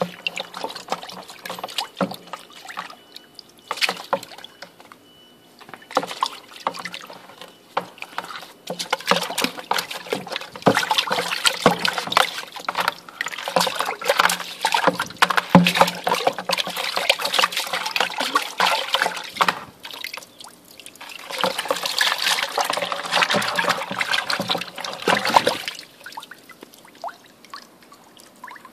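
Water sloshing and splashing in a plastic bucket as a hand scrubs a textured wall-art panel underwater. It comes in short spells at first, then a long busy stretch past the middle and another near the end, and stops a few seconds before the panel is lifted out.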